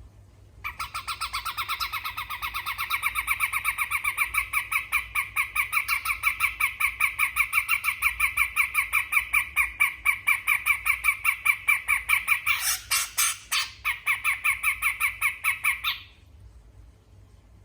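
Sumatran cucak jenggot giving its besetan call: a long run of rapid, evenly repeated chattering notes that stops suddenly near the end. A few sharp clicks break in about two-thirds of the way through.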